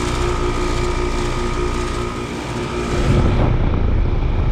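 Rheem Classic RP14 heat pump outdoor unit running in heat mode: Copeland scroll compressor humming with a few steady tones, plus the condenser fan's air. About three seconds in, a louder low rumble joins it.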